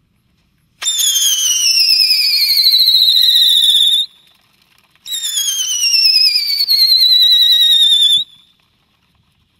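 Western Fireworks' The Scrambler, a ground firework, giving two loud whistles of about three seconds each, about a second apart. Each starts suddenly and slides steadily down in pitch before cutting off.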